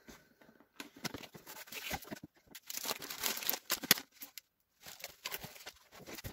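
Cardboard box and plastic packaging of a diamond painting kit being handled and unpacked: irregular rustling and crinkling as the rolled canvas, the plastic-wrapped drill packets and a small tool pouch are pulled out and set down, with a short pause a little past the middle.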